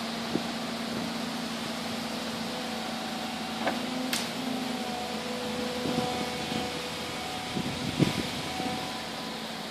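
Volvo EC160BLC excavator's diesel engine running steadily, a constant hum, with a few brief knocks about four seconds in and near the end.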